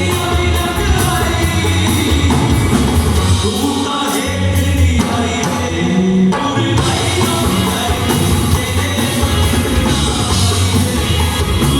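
Live band music, loud and continuous: a singer over amplified instruments and a steady drum and bass beat.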